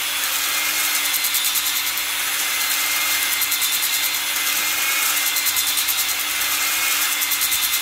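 Half-inch electric drill spinning a ball-type flex hone inside a cylinder bore of a John Deere two-cylinder tractor engine: a steady motor hum under a loud rasping scrape that pulses evenly several times a second as the hone is worked back and forth, honing the bore before the pistons go back in.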